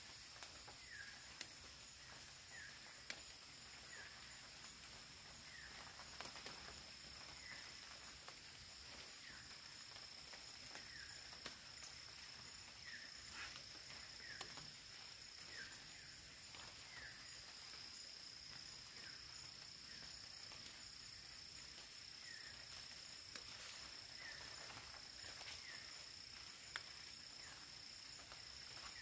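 Faint rainforest ambience: a steady high-pitched insect drone, with a short chirping call repeated about every second and a half and a few faint clicks.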